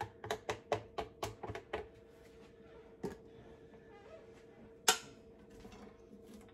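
A plastic container knocked repeatedly against the rim of a multicooker's steel inner pot to shake chopped carrots and celery in: about eight quick knocks in the first two seconds, then two single clicks, the louder one a little past the middle. A steady low hum runs underneath.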